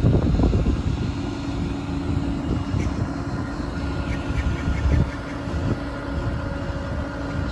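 Outboard motor of a small tow boat running steadily at low speed, a low even drone, with wind buffeting the microphone in gusts, loudest at the start and about five seconds in.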